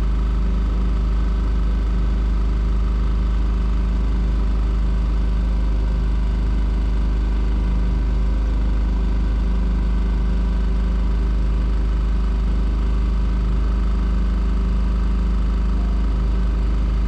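A small sailboat's motor running steadily under way, an even drone with a deep rumble that does not change in pitch.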